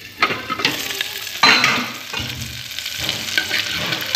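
Chopped onions and tomatoes frying and sizzling in a pot while a spoon stirs them, scraping the pot's side. The sizzle comes up sharply just as the lid is taken off, and is loudest about a second and a half in.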